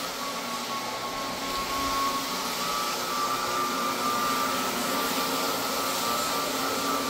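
Electric motor running steadily with a high whine, getting a little louder about two seconds in.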